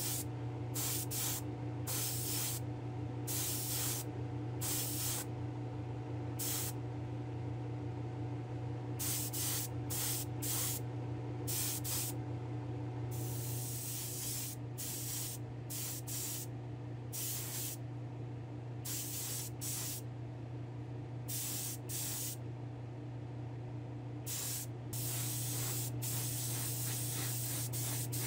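Paint sprayer hissing in short bursts a second or so apart, with longer sprays around the middle and near the end, as paint is misted onto small diecast truck parts. Under it runs the steady hum of the spray booth's exhaust fan.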